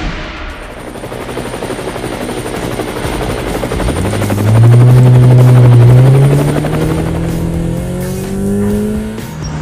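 Motor vehicle engine sound effect, rumbling and then revving up in a steady rising pitch over the last five seconds, loudest about halfway through.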